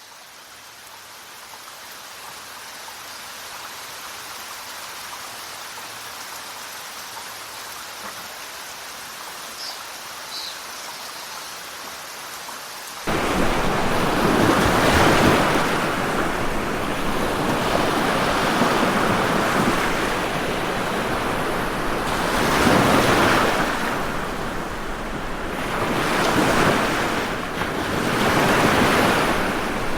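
A soft, steady rushing hiss fades in, then about 13 seconds in it cuts abruptly to loud ocean surf, waves breaking in swells every few seconds.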